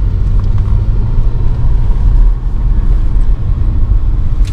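Audi RS4 B5's 2.7-litre twin-turbo V6 and tyres giving a steady low rumble while the car cruises at an easy pace, heard from inside the car.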